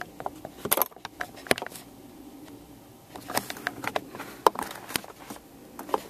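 Handling noise: scattered sharp clicks, knocks and rubbing as hands grip and tug at the plastic gear knob of an automatic shifter and move the camera about, with a quieter pause about two seconds in.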